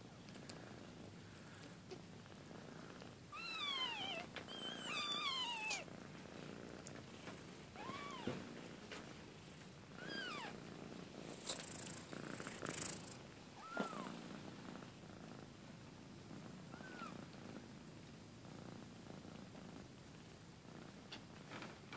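Two-week-old kitten purring steadily, with thin, high mews that arch up and fall in pitch: a run of them about three to six seconds in, then single mews every few seconds.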